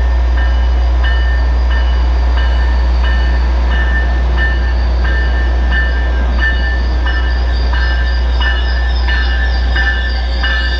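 Caltrain diesel train at the station, its bell ringing steadily about twice a second over the low rumble of the locomotive's engine.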